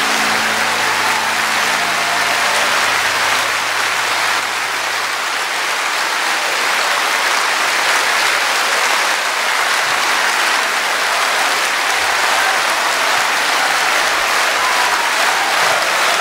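Large concert audience applauding steadily, a dense sustained clapping. A low held note fades out about four seconds in.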